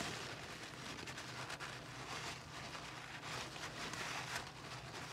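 Cloth rubbing inside a motorcycle cylinder head's port, wiping lapping compound off the freshly lapped valve seat: a soft, steady scuffing rustle.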